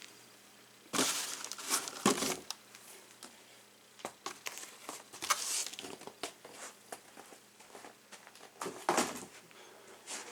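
Album packaging and box sets being handled: on-and-off rustling and crinkling with light knocks, loudest about one and two seconds in and again near the end.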